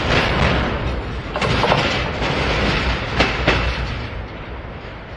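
Tail end of a double-stack intermodal freight train rolling away. A steady rumble of steel wheels on rail is broken by two pairs of sharp clicks as car trucks cross rail joints, then it fades as the last well car recedes.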